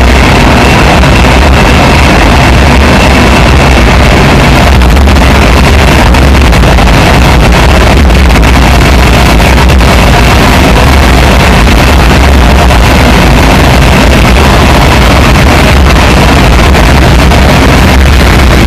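Loud, dense electronic noise music from a laptop: a harsh, steady wall of hiss with a heavy low rumble underneath.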